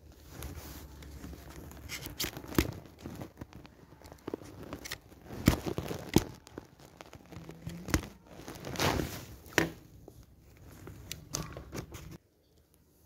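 Plastic handling noise: irregular crinkling and sharp clicks as a clear plastic dish holding a black, cracked gel is handled, the loudest click about five and a half seconds in. The sounds stop abruptly near the end.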